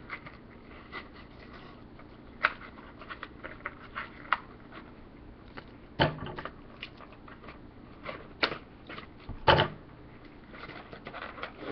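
Toy packaging being opened and handled: irregular small clicks, taps and rustles, with a few louder knocks about six seconds in and again near eight and a half and nine and a half seconds.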